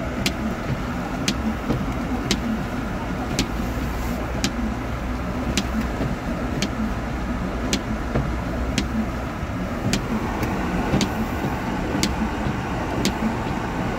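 All-wheel-drive car driving slowly through deep, unplowed snow, heard from inside the cabin: a steady rumble of engine and tyres in the snow. A sharp tick repeats about once a second throughout.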